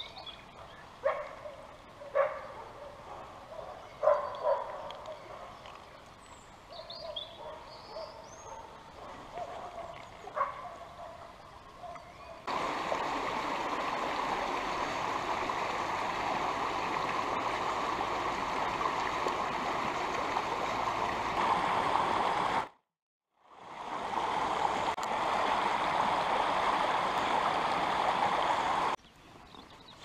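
Small river rushing over shallow riffles, a steady loud rush of water that cuts in abruptly about twelve seconds in and runs on with a brief break. Before it, a few scattered knocks and faint chirps over quiet water.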